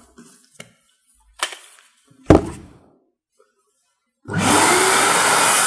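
Kärcher wet-and-dry vacuum cleaner switched on a little over four seconds in, its motor spinning up with a rising whine into a loud steady rush of air. Before that, a couple of knocks from the hose and camera being handled.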